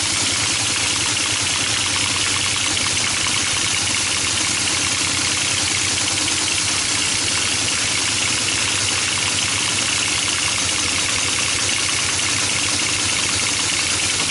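Teletype ASR 33 printing text read from its paper tape: a rapid, even mechanical clatter at the 110-baud rate of ten characters a second, over the steady run of its motor.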